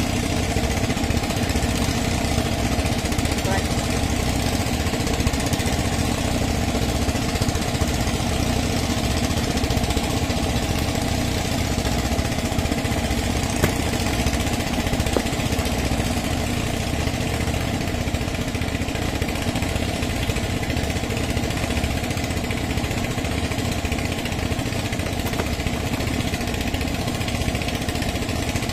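An engine running steadily, a constant mechanical drone that does not change.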